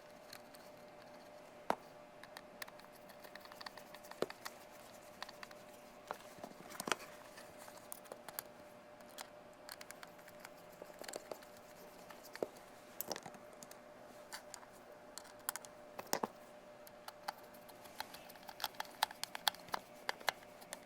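Small screws being driven by hand into a plastic switch housing: scattered light clicks and scratches of the screwdriver and parts, busier near the end, over a faint steady hum.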